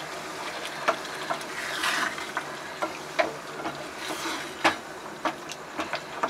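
A spatula stirring a thick, creamy curry gravy in a nonstick frying pan. The gravy simmers with a steady soft sizzle, and the spatula scrapes and clicks against the pan at irregular moments.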